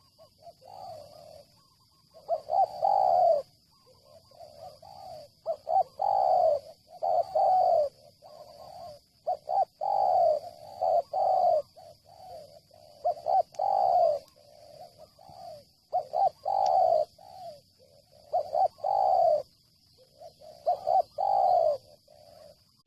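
Spotted dove cooing: a run of repeated coo phrases, each a quick cluster of low, rounded notes, with a new phrase every second or two.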